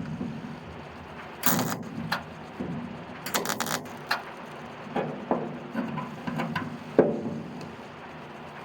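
Welder tacking a sheet-steel patch panel in place: two short crackling bursts, the second broken into several quick tacks, with a few sharp metal knocks between them.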